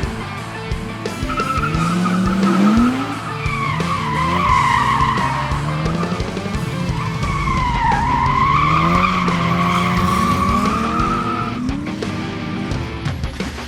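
Drifting race car: the tires squeal in a long, wavering screech while the engine revs climb and fall back again and again. The screech eases off near the end.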